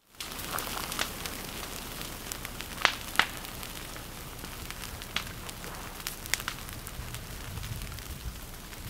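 Vegetation burning at the edge of an active lava flow: a steady hiss with scattered sharp crackles and pops, the loudest two close together about three seconds in.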